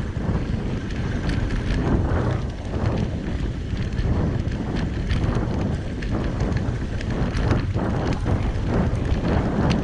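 Wind buffeting the microphone of a bicycle rolling fast along a dirt trail covered in fallen leaves, with tyre noise and frequent small rattles and knocks from the bike.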